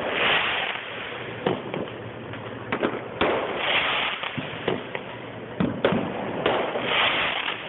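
Fireworks going off: a string of sharp bangs, some in quick pairs, with three stretches of hissing crackle, one at the start, one about three seconds in and one near the end.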